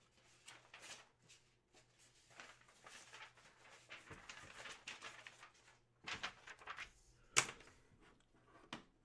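Faint rustling and handling noises of objects being moved on a desk, with a sharp click a little over seven seconds in and a softer one near the end.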